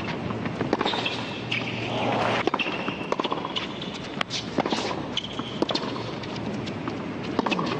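A string of sharp tennis racket-on-ball hits during a baseline rally on a hard court, over steady background crowd and court noise.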